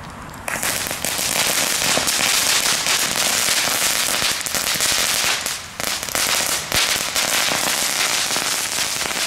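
Several small category 1 crackling fireworks going off together on the pavement: a dense, rapid crackling and popping that starts about half a second in, thins briefly in the middle, then keeps on.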